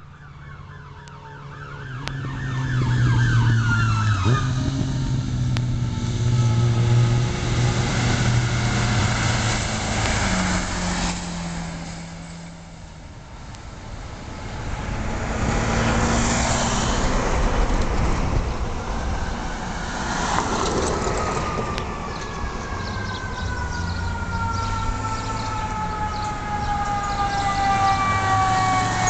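Ambulance sirens on a responding emergency run. An electronic wail sweeps up and down at first. Vehicles then pass loudly, and near the end a long siren tone slowly falls in pitch.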